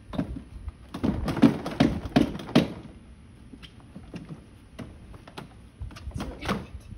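Knocks and clunks from a child's plastic electric ride-on toy Jeep as the child climbs in and sets it moving: a quick run of sharp knocks in the first three seconds, then scattered quieter ones and a short cluster near the end.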